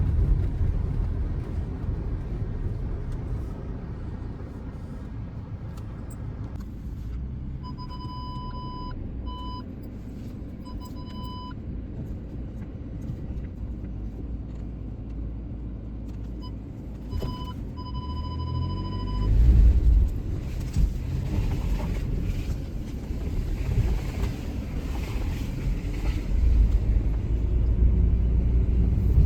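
Low rumble of an Audi Q5 moving slowly, with the car's parking-sensor warning beeping in two spells; in the second spell the beeps run together into one steady tone, the sign of an obstacle very close. After that the rumble gets louder.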